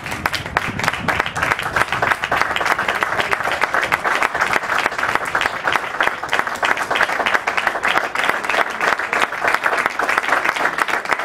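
Many hands clapping in a dense, steady patter: two youth rugby teams applauding each other at the end of the match.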